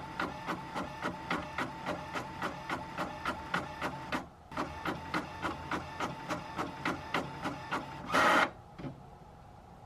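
HP Envy 5010 inkjet printer printing, its print head shuttling in a steady rhythm of about four strokes a second, with a short pause about four seconds in. About eight seconds in there is a brief, louder rushing sound, and then the printer goes quiet.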